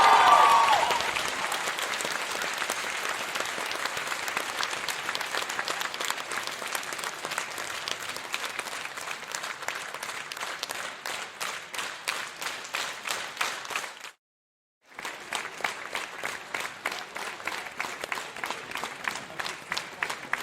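Crowd applause, dense at first with a shout fading out in the first second, thinning into separate claps. It cuts out for a moment of silence about two-thirds through, then a smaller group claps steadily.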